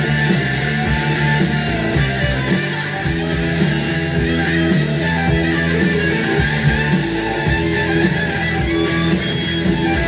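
Loud rock music with guitar, playing continuously.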